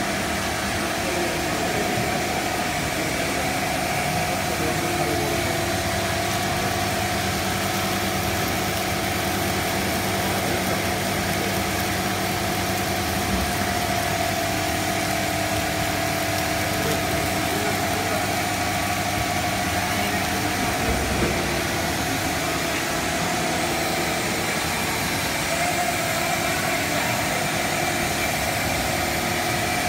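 Steady hum and whir of a running cast stretch film extrusion line: an even machine drone with several held tones over a broad noise.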